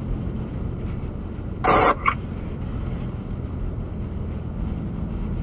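Steady low rumble of a vehicle driving. About one and a half seconds in there is a short burst of hiss lasting under half a second, followed by a small click.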